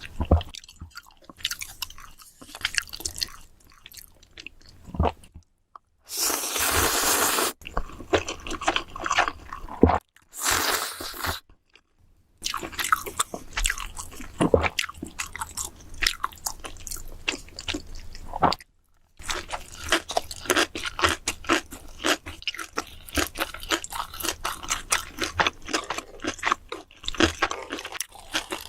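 Close-miked eating of ramen: wet chewing and crunchy bites, with two longer noisy slurps of noodles about six and ten seconds in. The sound cuts to silence abruptly a few times.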